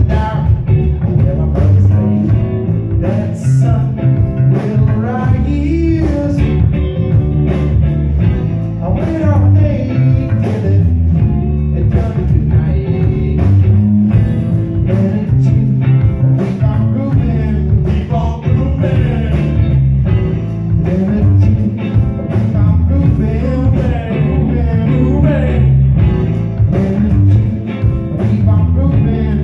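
Live band playing electric bass and electric guitar through stage amplifiers, with the bass heaviest in the sound.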